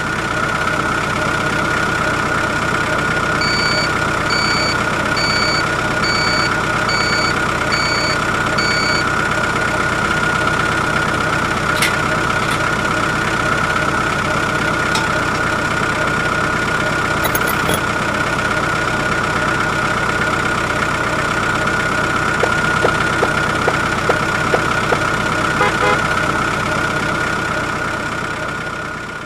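A vehicle engine running steadily with a high, even whine. A few seconds in it is joined by a row of about seven short, evenly spaced electronic beeps, and a few faint clicks come near the end.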